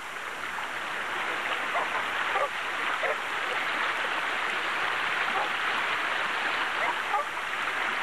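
Steady rushing of a river's current running over a riffle of white water.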